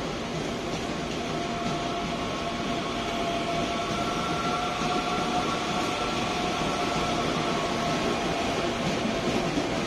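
CPTM electric multiple-unit train rolling slowly past the platform: a steady rumble of wheels on rail, with an electric whine of several steady tones that is strongest in the middle.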